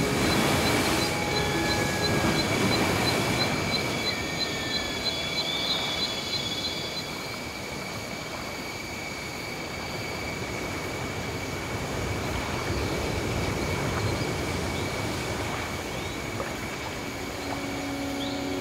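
Steady noisy ambience bed with faint steady high tones, and a soft regular ticking over the first seven seconds or so.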